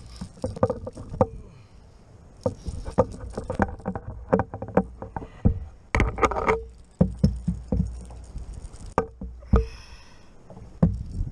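Irregular knocks, taps and rattles of a landing net and fishing gear being handled against a kayak's hull, some knocks ringing briefly, over a low rumble of wind and water. The loudest thumps come about six and nine and a half seconds in.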